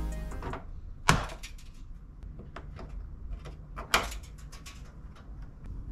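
Plastic clicks and knocks as a radiator shroud is pressed onto its plastic push clips: two sharp clicks, about a second in and near four seconds in, with fainter taps between.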